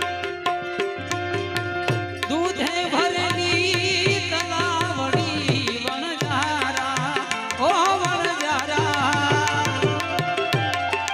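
Gujarati bhajan music: a hand drum keeps a steady, quick beat under held harmonium notes, and an ornamented melody line with slides and wavers comes in about two seconds in.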